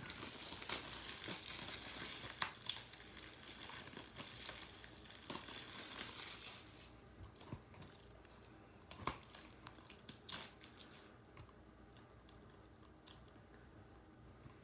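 Plastic shrink wrap being torn and peeled off a Blu-ray case, crinkling and crackling with many small clicks. About halfway through it dies down to occasional faint clicks and rustles as the case is handled.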